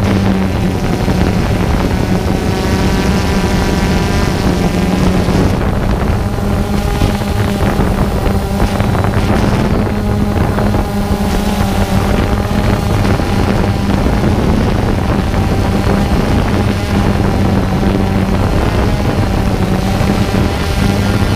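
Remote-controlled camera aircraft's propeller motors running at a steady pitch, heard loud and close from the onboard camera, with wind buffeting the microphone.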